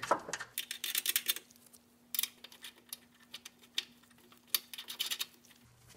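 Steel nuts and washers clicking and clinking as a gloved hand spins flange nuts by hand onto the studs of a caster/camber plate, snugging them loosely. Quick runs of clicks at first, then scattered single clicks.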